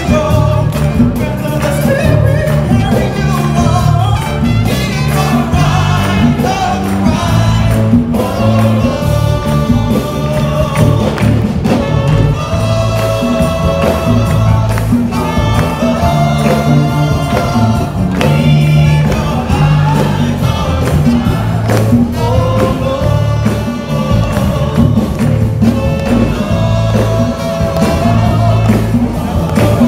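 Live worship band playing a song: several singers at microphones over keyboard and a strong stepping bass line, with a standing congregation clapping along.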